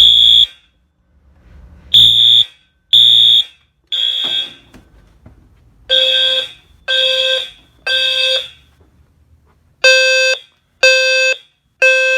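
Fire alarm horns sounding together in the code-3 temporal pattern: three half-second blasts, a pause, then three more, repeating. They include a Simplex 4040 AC horn, a Wheelock MT-1224 multitone horn and a System Sensor HW-LF low-frequency horn, set off by a manual pull station.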